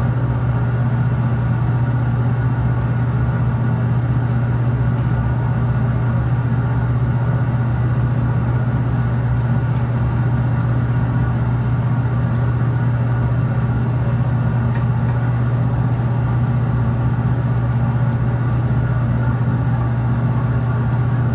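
Steady low hum of a laboratory fume hood's exhaust fan running, unchanging throughout.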